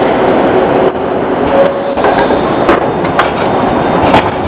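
A coupled Tatra tram set rolling past close by: a steady rumble of wheels on rails and running gear, with three sharp clicks from the wheels on the track in the second half.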